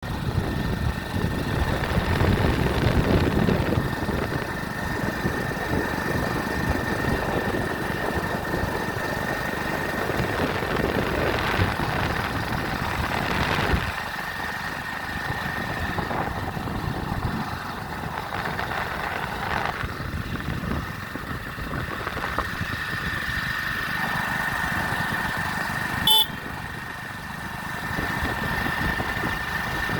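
Vehicle running with steady rumble and road noise, heavier in the first half and easing about halfway through, under a thin, steady high-pitched tone. A single sharp click about 26 seconds in.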